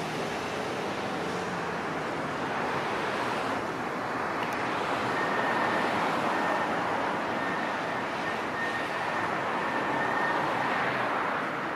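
Two coupled Alstom Citadis Dualis tram-trains passing, a steady rolling noise of wheels on rail that grows louder about halfway through as the train draws nearest.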